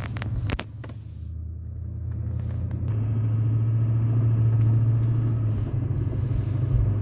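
Vehicle engine and road noise heard from inside the cab while driving: a steady low drone that grows louder over the first few seconds, with a few sharp clicks about half a second in.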